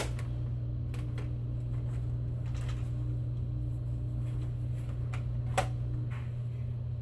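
A steady low hum with a few faint clicks, and one sharper click or tap about five and a half seconds in.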